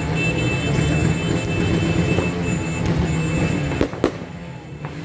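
New Year's firecrackers going off: a continuous low rumble with scattered sharp bangs, the two loudest close together near the end.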